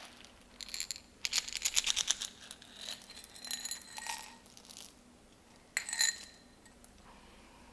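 LECA expanded-clay pebbles rattling and clicking against each other and against a hard container as they are handled and poured. There is a rapid run of clinks in the first half, scattered ones after, and one sharp, ringing clink about six seconds in.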